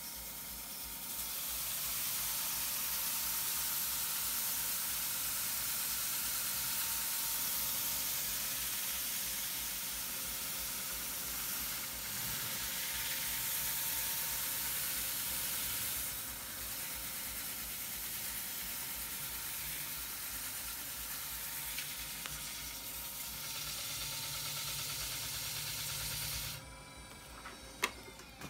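JET JWL-1221VS wood lathe spinning a vase blank while a handful of wood shavings is pressed against it to polish it: a steady rushing hiss of shavings rubbing on the turning wood over a faint steady motor whine. The rubbing stops suddenly near the end, followed by a few sharp clicks.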